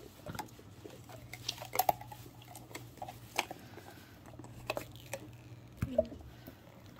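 A silicone mold being worked and peeled off a cured epoxy resin jar by hand: soft squishing and rubbing of the silicone, with scattered light taps and clicks of resin pieces on the table, over a faint steady hum.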